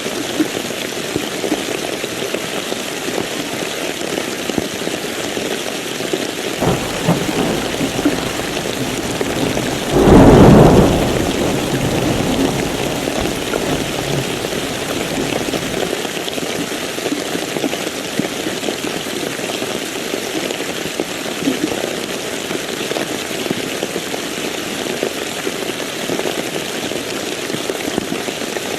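Steady heavy rain with a thunderclap about ten seconds in, the loudest moment, rumbling off over a few seconds; a fainter rumble comes a few seconds before it.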